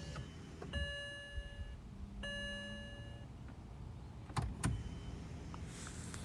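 A BMW N52 car failing to start with a bad starter. The dashboard chime sounds as separate one-second tones, then two sharp clicks come about four and a half seconds in, but the engine does not crank.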